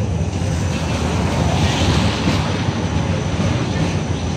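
Tram running along its track, heard from inside the car: a steady low rumble of wheels and motor, with a brief hiss about two seconds in.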